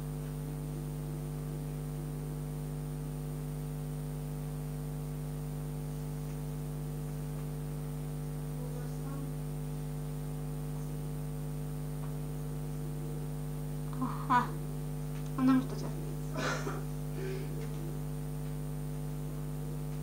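Steady electrical hum, a constant drone made of several evenly spaced tones, with a few short spoken words about three-quarters of the way through.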